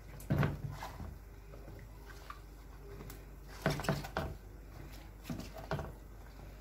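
Whole eggplants being lowered one by one into a stainless steel pot of boiling water: several soft plops and knocks against the pot at irregular intervals.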